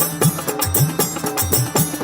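Hindu devotional music with a fast hand-drum rhythm: low drum strokes that bend in pitch, over quick jingling percussion.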